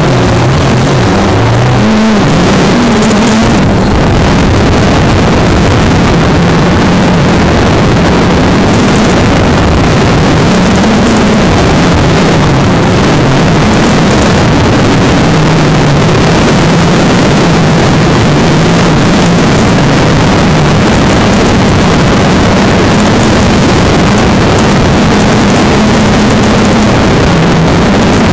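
Small multirotor drone's motors and propellers buzzing loudly, heard through the aircraft's own camera microphone, with a steady hiss. The hum wavers up and down in pitch as the drone descends toward the ground.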